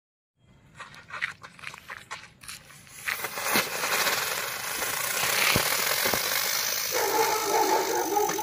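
Disc-shaped ground firework cracker going off: scattered crackles and pops at first, then from about three seconds in a steady, loud hissing and crackling shower of sparks. A dog barks near the end.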